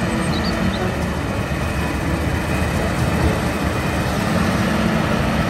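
MAN heavy-haul tractor unit's diesel engine running steadily as it pulls a lowboy trailer loaded with a tracked excavator.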